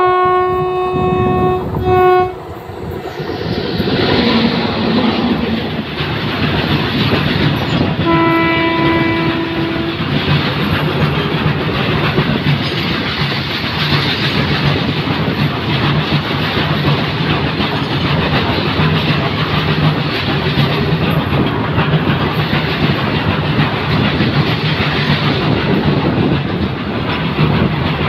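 WAG-9 electric locomotive's horn sounding a long blast and a short toot at the start, then a second, lower-pitched blast about eight seconds in. A long goods train of loaded open wagons rolls past close by with a steady rumble and clickety-clack of wheels over the rail joints.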